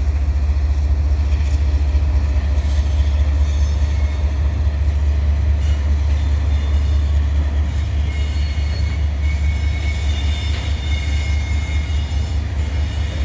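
Two Canadian Pacific GE ES44AC diesel locomotives pulling a double-stack container train slowly past, with a steady low engine rumble and the cars rolling behind. Faint high-pitched wheel squeal comes in during the second half.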